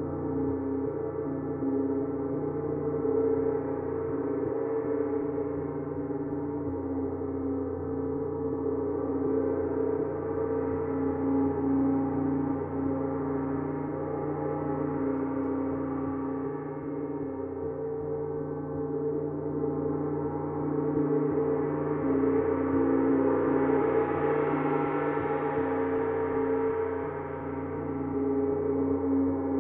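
Gongs played in a continuous wash: many overlapping ringing tones that swell and ebb in slow waves, fullest about three-quarters of the way through.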